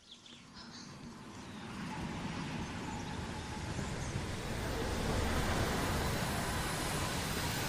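Steam locomotive rumbling as it approaches along the track, growing louder over the first few seconds and then running on steadily.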